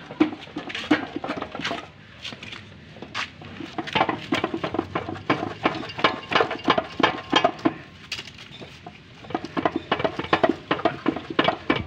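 Rapid metallic clicking and clinking from hand tools working on a Daihatsu Espass engine and gearbox, in runs of a few seconds with short pauses between.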